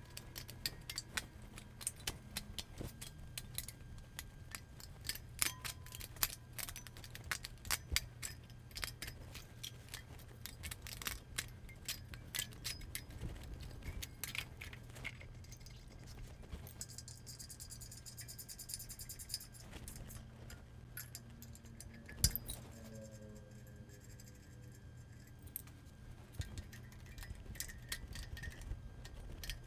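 Metal cylinder head gasket clicking and clinking against the steel head studs as it is worked down over them onto a Jaguar V-12 block, with one louder knock about two-thirds of the way through. A steady low hum runs underneath.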